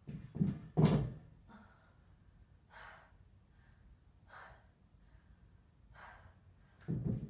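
A person's feet knocking against a metal ladder leaning on a wall while kicking up into a handstand, the loudest sounds in the first second. Then three breaths about a second and a half apart while the handstand is held, and more knocks near the end.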